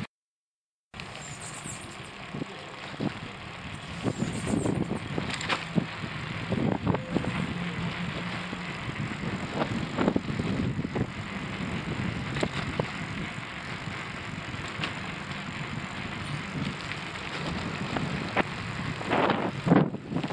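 Small motor scooter engine running steadily while being ridden, with wind on the microphone and scattered knocks. The sound cuts out for about the first second.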